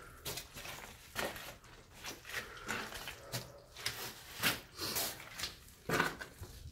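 Footsteps on a wet, stony, muddy cave floor, uneven steps roughly two a second, the loudest about six seconds in.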